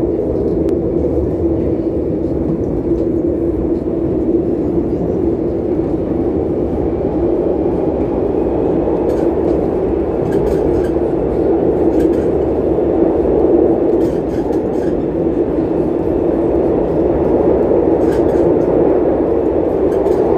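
Madrid Metro Line 10 train running between stations: a steady rumble of wheels and motors that slowly grows louder, with faint ticks here and there.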